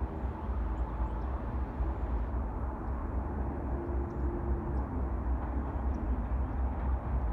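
Distant GE C44-9W diesel locomotives approaching slowly at the head of a freight train: a steady low rumble with a faint engine hum.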